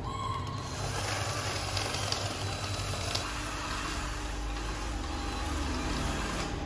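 Cordless drill running steadily as it bores into a plastic PVC pipe frame.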